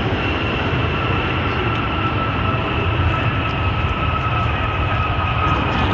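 Jet airliner engines: a steady rumble with a high whine that slowly falls in pitch.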